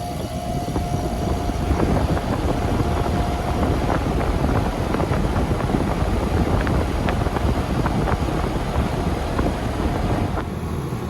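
Outdoor condensing unit of a 2012 Goodman GSX13 5-ton central air conditioner running: the steady noise of the condenser fan and Copeland scroll compressor, coming up in level over the first couple of seconds.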